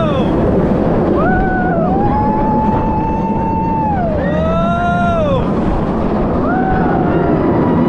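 Roller coaster riders screaming in long, held cries that rise and fall, one held for about two seconds and others overlapping. Under them runs the loud rush of wind and rumble of the train at speed.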